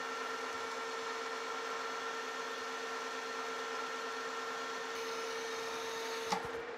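Metal lathe running under a heavy roughing cut on a metal bar: a steady hum from the spindle and gearing with the hiss of the cut. Near the end there is a click, and the high hiss thins while the hum continues.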